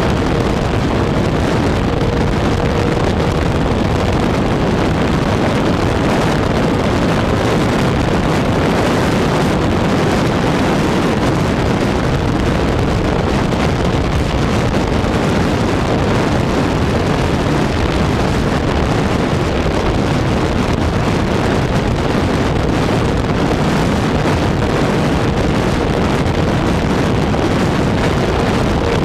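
Onboard sound of a radio-controlled propeller plane in high-speed flight: a steady rush of wind over the camera's microphone mixed with the propeller and motor drone, with a faint steady motor whine near the start and near the end.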